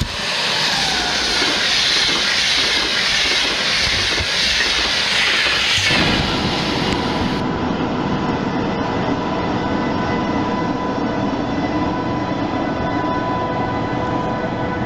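A Deutsche Bahn electric locomotive hauling Intercity coaches passes at speed with a loud rush of wheel and air noise. About six seconds in the sound changes abruptly to another electric-hauled Intercity train rolling past on the rails, its wheels rumbling under a steady electric whine.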